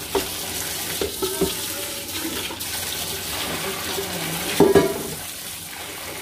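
Kitchen tap running into a sink while a cooking pot is rinsed under it. A few clanks of the pot ring out over the water, the loudest about four and a half seconds in.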